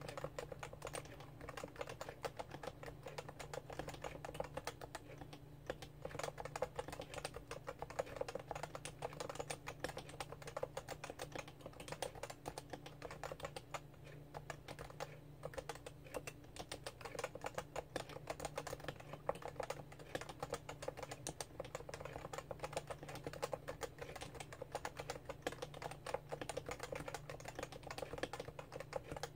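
Continuous fast typing on a Realforce R2 keyboard with Topre electrostatic-capacitive switches, a dense run of soft, rounded keystrokes. A steady low hum runs beneath.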